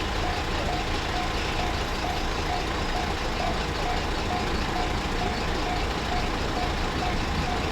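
Japanese level-crossing warning bell ringing its electronic 'kan-kan' about twice a second, over a steady rushing noise.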